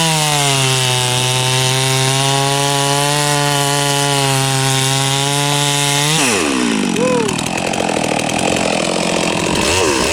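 Stihl MS 461 chainsaw at full throttle cutting through a log, the engine note held steady under load. About six seconds in the throttle is released and the engine drops to idle, then is blipped briefly a couple of times.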